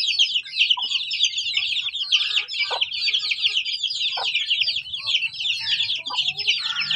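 A brood of kampung chicken chicks peeping nonstop, many high chirps overlapping, with a few short lower calls from adult chickens among them.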